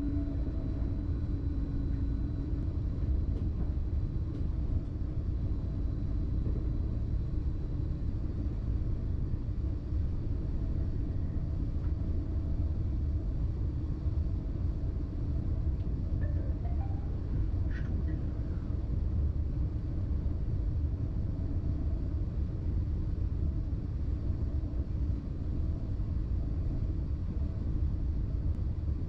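Cab noise of a BLS RABe 515 'MUTZ' electric multiple unit running along the line: a steady low rumble, with a short higher-pitched squeal about two-thirds of the way through.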